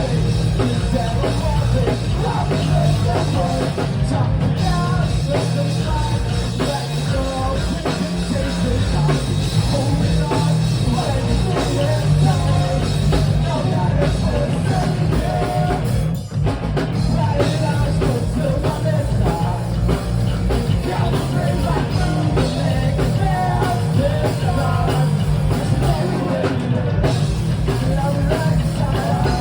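Rock band playing a song with a singer over drum kit and bass, loud and steady, with a brief break about sixteen seconds in.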